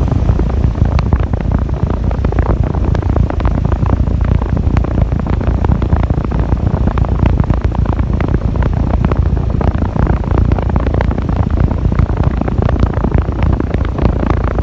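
3-ton Trane XR14 heat pump outdoor unit running in heat mode, its fan and compressor giving a loud, steady low rumble with a rapid flutter.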